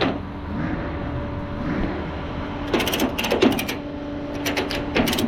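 Two runs of rapid, sharp mechanical clicks, the first near the middle and the second near the end, over a steady low hum.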